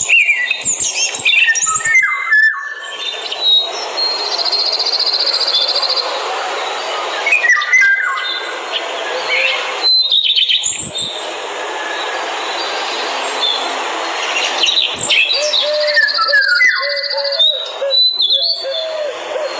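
Forest birds chirping and calling, with quick gliding whistles and rapid trills, over a steady hiss of forest ambience.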